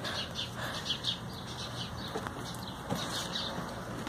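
A bird chirping in a fast run of short, high notes, about six or seven a second, that breaks off and starts again, with a few faint clicks.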